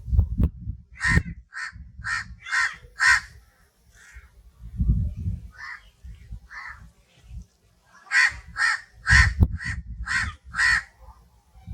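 Crows cawing: two runs of short, harsh caws at about two a second, with a few fainter caws between, over a low rumble.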